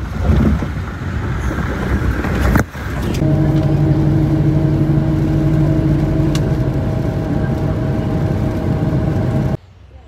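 Tour jeep's engine running at steady revs on a forest track, a level hum that holds unchanged. It follows a rougher, noisier passage in the first few seconds, and the sound cuts off suddenly near the end.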